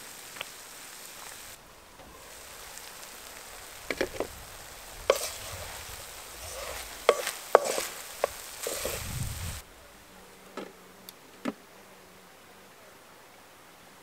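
Wooden spoon stirring and scraping bulgur in a frying pan over a wood fire, with sizzling and sharp knocks of the spoon against the pan; it stops suddenly near ten seconds in, and a few soft knocks follow.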